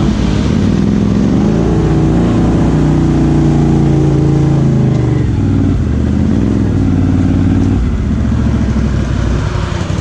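ATV V-twin engine with an aftermarket exhaust revving hard under load. The pitch climbs over the first couple of seconds and holds high, dips briefly near six seconds, then drops off near eight seconds.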